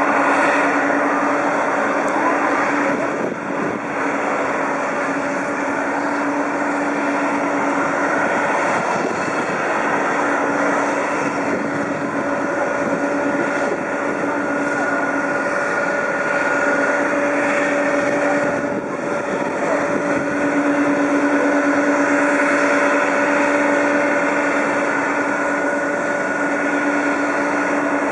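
Boeing 777 jet engines running on the apron: a steady rush of noise carrying a low drone and a higher whine that fade in and out.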